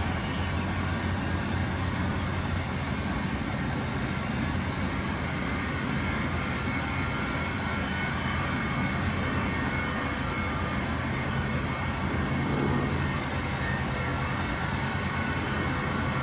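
Diesel engine of heavy earthmoving machinery running steadily, a continuous low drone with a slight lift in pitch and level about twelve seconds in.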